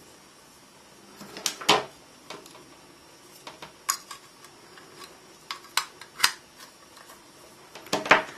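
USB plugs and cables being handled and plugged into a plastic USB hub: a scattering of sharp clicks and clatters, with a loud pair about a second and a half in and a cluster near the end.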